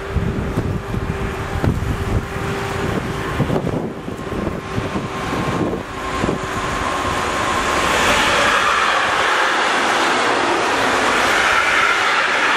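Electric locomotive and intermodal freight train approaching and passing close by. An uneven low rumble with knocks gives way, a little over halfway in, to a steady, louder rush of wheels on rail that holds as the wagons roll past.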